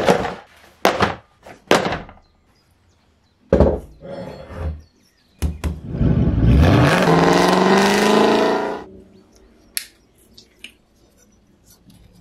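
Objects knocked and set down on a wooden workbench: a hollow plastic tub and a wooden block clattering, in several separate knocks. About six seconds in comes a loud rushing sound, nearly three seconds long, that rises in pitch, then a few light clicks of small metal parts being handled.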